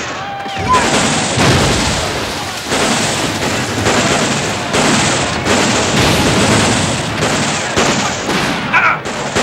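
Film battle din of massed musket and rifle fire with booms, running without let-up, with a couple of brief yells from the fighters.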